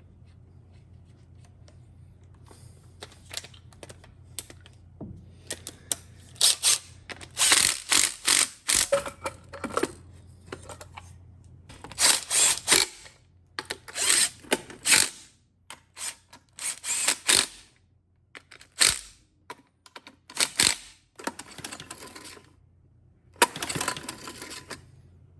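Hand tools and small metal engine parts being handled during engine reassembly: irregular scrapes, clicks and clatters in short bursts, starting a few seconds in, over a faint steady hum.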